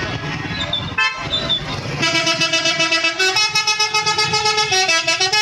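Bus telolet horn, a multi-tone air horn, playing a rapid pulsing melody that steps from note to note, starting about two seconds in after a brief single toot.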